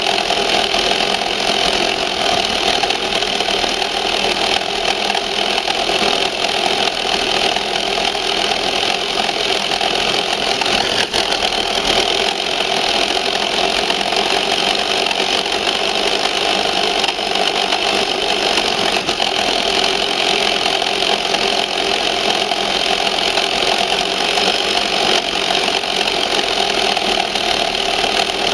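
Tamiya Ford F350 RC truck's electric motor and gearbox whining steadily as it drives, heard from a camera mounted on its body.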